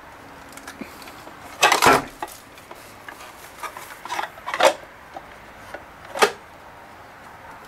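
Hard plastic clatter and clicks from an X-ACTO School Pro electric pencil sharpener being turned over in the hands while its clear plastic shavings receptacle is slid out and pushed back in. A loud burst of knocks comes about two seconds in, a looser run of clicks in the middle, and one last sharp click near the end.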